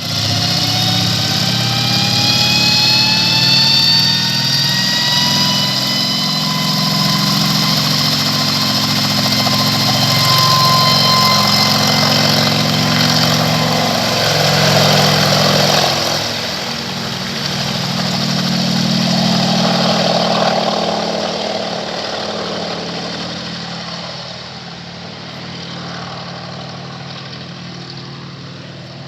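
Helicopter engine and rotors running close by, a high whine slowly rising in pitch over the first ten seconds above a steady low rotor beat. The sound then grows fainter over the second half as the helicopter takes off and moves away.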